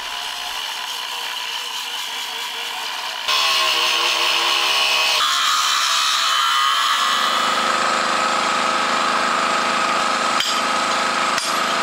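Angle grinder with a stone-cutting disc grinding out recesses in the stone rim of a well, running with a steady high whine; the sound jumps louder about three seconds in. Two sharp knocks near the end.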